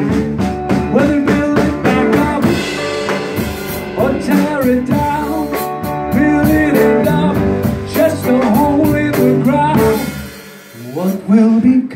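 Live band playing: drum kit keeping a steady beat with cymbal and snare hits, guitar, and a man singing. The music thins out briefly near the end, then comes back in with a loud hit.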